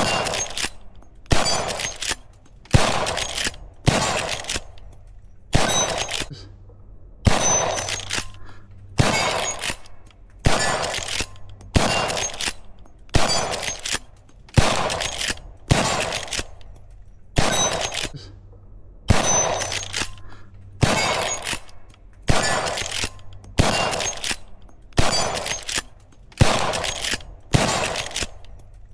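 Henry lever-action rifle firing in a steady string of single shots, about one every second and a half, each shot ringing out briefly before the next.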